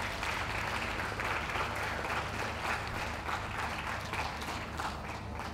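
Ringside crowd applauding, a steady mass of clapping that eases off slightly near the end.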